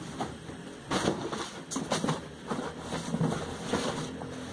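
Irregular rustling and crinkling of paper and plastic packaging being handled, with a faint low hum underneath.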